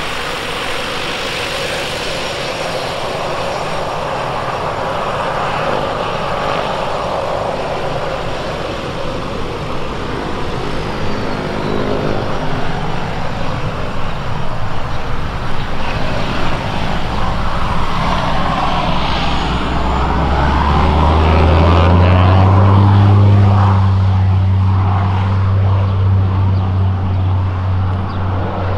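Turbine Legend's Walter M601 turboprop and three-bladed propeller: a whining hiss at taxi power. From about two-thirds of the way through, a deep propeller drone builds and grows louder as power comes up for the take-off roll.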